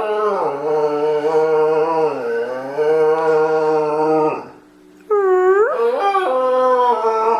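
Pet dog howling on command, in long wavering notes. One howl trails off about four seconds in, and after a short pause a second howl begins with a swoop in pitch.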